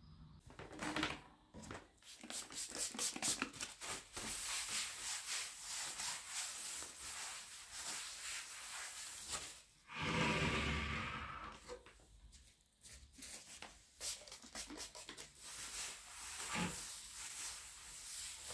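Household handling sounds: rubbing, light knocks and clicks, with a louder rushing noise lasting about two seconds around the middle.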